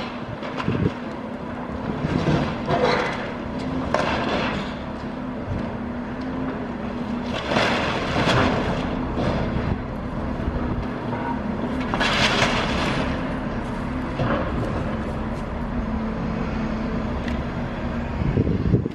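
Diesel engine of a wheel loader running steadily, with several bursts of breaking, clattering and scraping debris as its grapple tears at a concrete building, the longest about halfway through.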